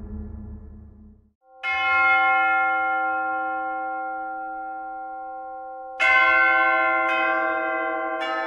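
Low, dark intro music fades out in the first second, then a large bell is struck once and rings on, slowly dying away. About six seconds in it is struck again, followed by two more strikes about a second apart, the rings overlapping.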